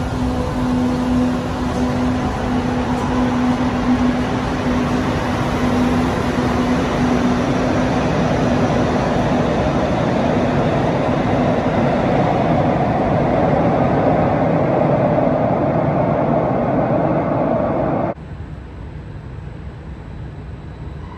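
Madrid Metro 2000-series train pulling out of the underground station and running away into the tunnel: a steady motor hum at first, then the rumble of wheels on rail. It cuts off suddenly near the end, leaving a quieter steady station hum.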